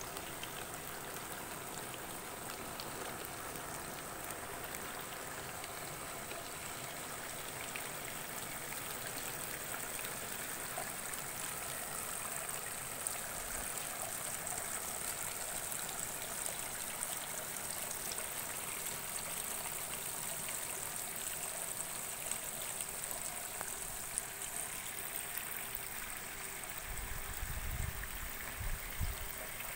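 Water trickling steadily through hydroponic growing channels, with a thin, steady high hiss over it. A few low thumps come near the end.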